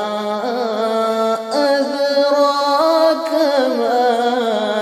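A man's voice in melodic Quranic recitation (tajweed), drawing out one long, ornamented phrase whose pitch steps upward and then falls back.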